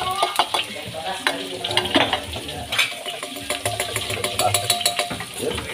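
Sliced aromatics and ground spices frying in hot oil in a wok: a steady sizzle full of rapid, irregular crackling pops.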